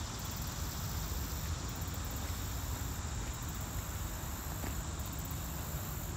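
Steady outdoor background noise with a low rumble underneath and no distinct event.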